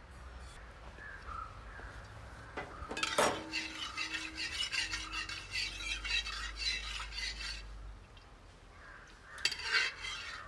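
Flat steel spatula scraping and stirring mustard seeds across a metal uruli pan in hot coconut oil as the seeds start to splutter. A dense run of scraping and clinks from about three to eight seconds in, with a sharper strike at its start and another short burst of scraping near the end.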